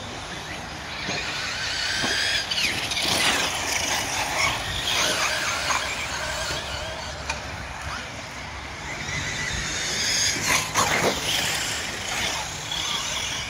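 Radio-controlled truggies racing on a dirt track, their motors whining high and rising and falling in pitch as they accelerate, brake and pass. Two passes are louder, one a couple of seconds in and one near the end.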